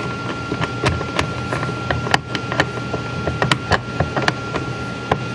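Irregular light metallic clicks and knocks as a brass clock mainspring barrel and its spring clamp are handled and seated on the winding arbor of a mainspring winder.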